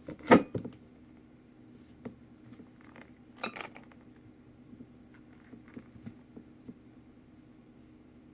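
Hard craft items knocked and set down on a tabletop: one sharp loud clack with a second close behind, another clatter a few seconds later, and light scattered taps and clicks of handling between.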